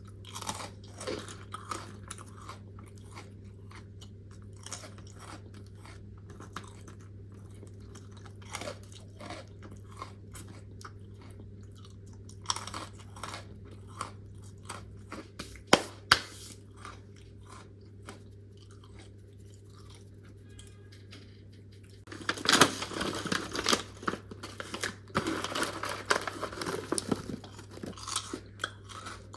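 Close-miked chewing and crunching of crisp freeze-dried fruit. For most of the stretch there are only scattered small crunches and mouth clicks, with one sharp click about halfway. About three-quarters of the way in, loud steady crunching takes over. A steady low hum runs underneath.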